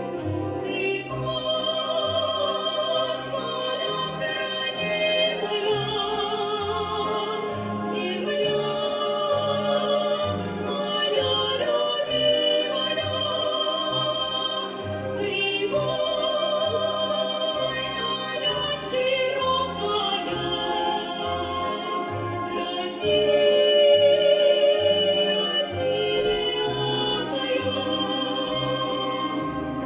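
Two female vocalists singing a Russian song with vibrato, accompanied by an orchestra of Russian folk instruments with a steady plucked bass beat. The music swells louder for a few seconds about three-quarters of the way through.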